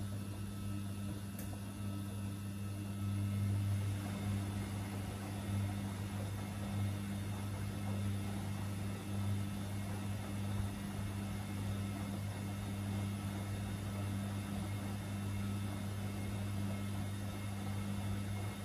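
Samsung and Gorenje front-loading washing machines running their wash cycles, drums turning bulky loads of laundry, with a steady motor hum and small swells as the loads tumble.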